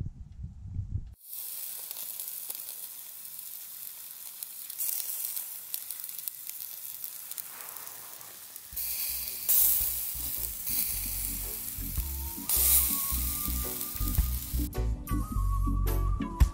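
Boerewors sausage sizzling and frying over a wood fire in a folding stick stove, a dense steady hiss. Background music comes in about halfway and is left alone near the end.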